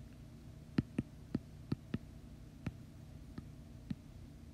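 Stylus tapping on a tablet's glass screen: about eight light, irregularly spaced taps in the first four seconds, over a faint steady low hum.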